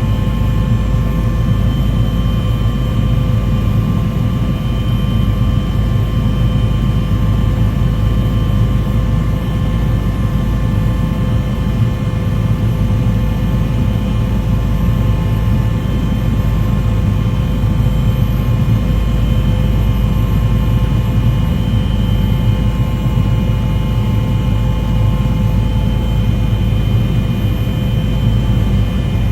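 Steady engine or motor noise: a constant low rumble with several steady whining tones over it, unchanging throughout.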